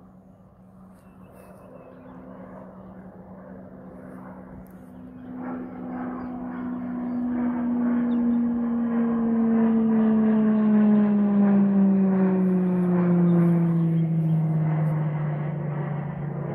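An aircraft flying past overhead: its engine note swells from faint to loud over several seconds, then falls steadily in pitch as it goes by and begins to fade near the end.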